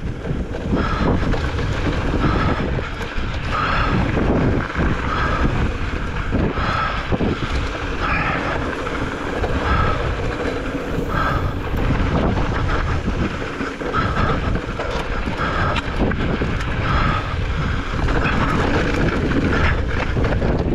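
Strong wind buffeting the microphone of a helmet camera on a mountain bike at speed, a continuous loud rumbling rush. Short high tones recur about once a second throughout.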